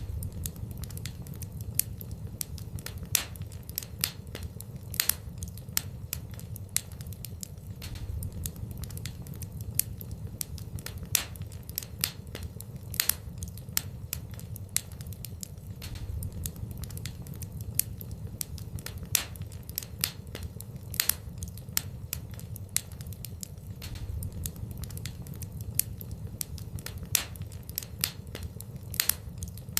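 Fire in a fireplace crackling, with irregular sharp pops several times a second over a steady low rumble.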